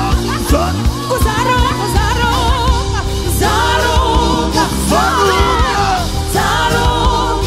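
Live gospel worship song: several voices singing together into microphones, with wavering vibrato, over a band with drums and bass.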